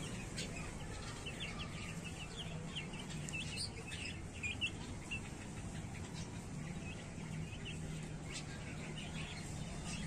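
Young chicks peeping: a scatter of short, high peeps, most of them in the first half, while they peck at grain.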